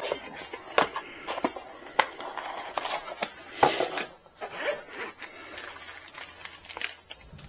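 Cardboard packaging being unboxed by hand: a box sliding out of its sleeve, the lid opened and the contents lifted out, with irregular scraping, rubbing and sharp taps.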